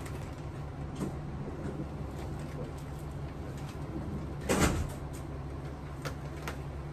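Low steady hum of the stationary train car, with a few faint light clicks and one short knock about four and a half seconds in as a rubber stamp and ink pad are handled on a wooden counter.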